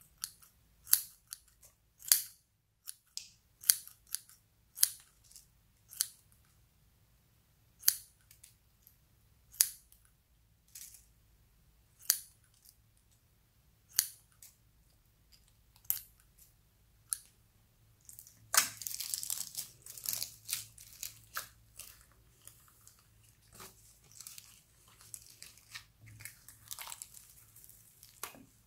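Scissors snipping a squishy toy corn cob into pieces, one sharp snip every second or so. About two-thirds through, this gives way to hands squeezing and folding slime, a dense run of crackles and small pops.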